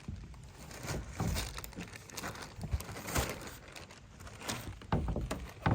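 Irregular rustling and crackling with scattered light knocks.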